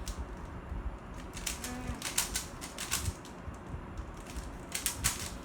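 Plastic Rubik's cube being turned rapidly during a speedsolve: bursts of quick clacking clicks, in several clusters.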